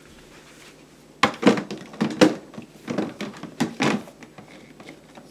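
A run of irregular knocks and clatters as a standing garment steamer's plastic parts are handled and set up, beginning about a second in and stopping about four seconds in.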